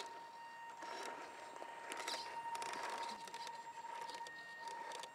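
Scale RC crawler driving over forest-floor debris: irregular crackling and rustling of twigs and litter under its tyres, over a steady high-pitched whine.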